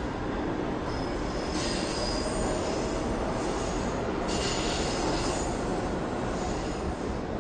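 New York City subway train running through the station: a steady rumble with high-pitched wheel squeal coming in short spells, loudest about two seconds in and again near the five-second mark.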